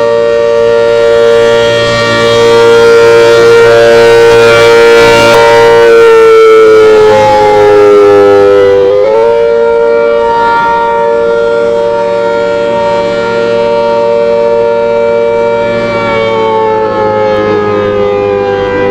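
ACA Hurricane outdoor warning siren sounding the attack signal: a loud multi-tone chord that slowly sags in pitch, swings sharply back up about nine seconds in, then sags again near the end before rising once more.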